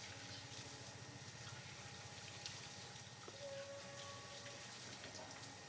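Water running faintly from a tap during a bath, over a steady low hum. A faint, brief high tone comes about three and a half seconds in.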